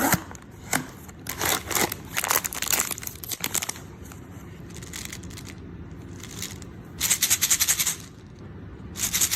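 Plastic blind-bag packaging crinkling as it is handled and opened, in several bursts of crackly rustling with a quieter stretch in the middle.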